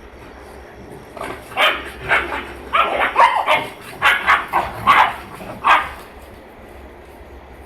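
German Shepherd dogs barking, a quick run of about ten short, fairly high-pitched barks and yips that stops about two seconds before the end.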